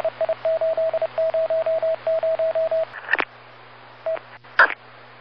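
Radio-transmission sound effect: a single steady tone keyed on and off in rapid short and longer beeps like Morse code, over a steady static hiss with a low hum. About three seconds in the beeping stops, leaving the hiss broken by a few crackles and one lone beep.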